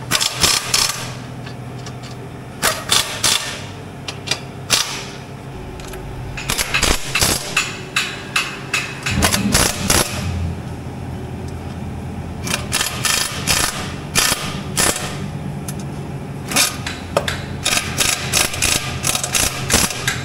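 Handheld pneumatic tool running bolts into an aluminium skid plate, in several short runs of rapid clicking separated by pauses, over a steady low hum.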